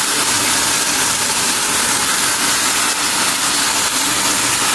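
Marinated chicken pieces and a watery masala sizzling steadily in hot oil in a pan.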